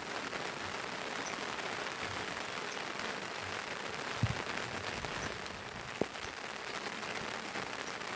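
Heavy falling snow pattering steadily on a plastic sheet shelter, with a couple of faint knocks about four and six seconds in.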